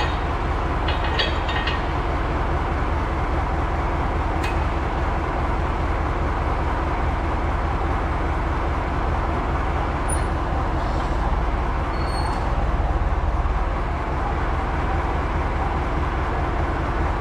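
Tractor diesel engine idling steadily, with a few light metallic clinks as a rear ballast weight is coupled to the three-point hitch: a short cluster about a second in, a single sharp clink a few seconds later, and more around ten to twelve seconds in.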